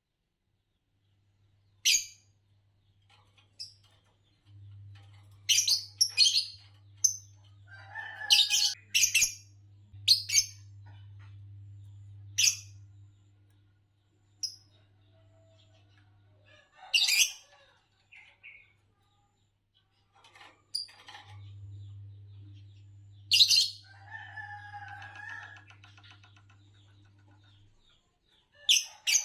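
A pair of green Fischer's lovebirds chirping: short, sharp, high calls at irregular intervals, with a couple of brief lower warbling chatters between them. A faint low hum comes and goes in the background.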